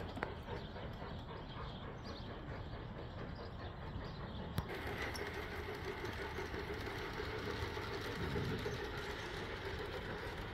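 G-scale LGB model steam locomotive train running on garden-railway track: a steady running noise, with a sharp click near the start and another just before halfway.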